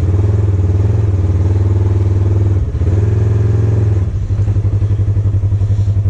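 Polaris RZR XP 1000's parallel-twin engine running at low speed as the side-by-side creeps along in gear. The engine note dips briefly about two and a half seconds in and turns to a more pulsing low throb about four seconds in.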